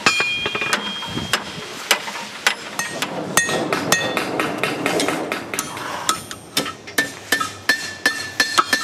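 Blacksmiths' hand hammers striking metal on anvils: many irregular, overlapping blows, several of them ringing briefly after the strike.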